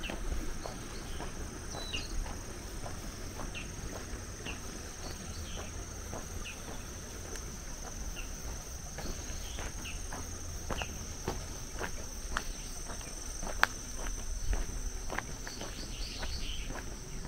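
A steady high-pitched chorus of insects, with the footsteps of someone walking on a paved lane clicking along underneath and one sharper step about two-thirds of the way in.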